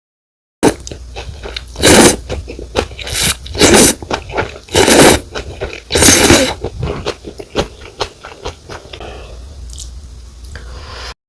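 Pho rice noodles being slurped and chewed close to the microphone: several loud slurps a second or so long, with wet chewing clicks in between. The sound starts suddenly just under a second in and cuts off abruptly near the end.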